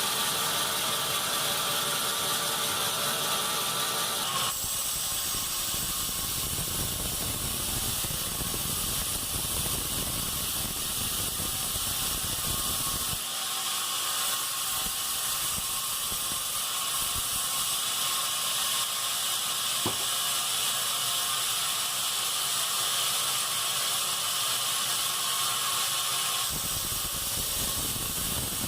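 Sawmill bandsaw running and cutting pine logs: a steady mechanical hiss and whir with no speech. The sound shifts abruptly about four seconds in, again near the middle, and near the end.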